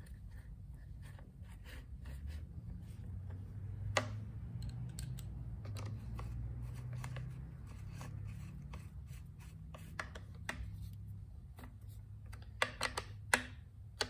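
Scattered small metal clicks and taps of an 8 mm socket driver, turned by hand, seating and tightening nuts on a trimmer's air-filter base, with a sharper click about four seconds in and a quick cluster near the end, over a steady low hum.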